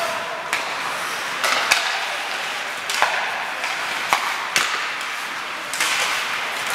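Ice hockey play: hockey sticks clacking sharply against the puck and each other, several separate strikes, over a steady hiss of skate blades scraping the ice.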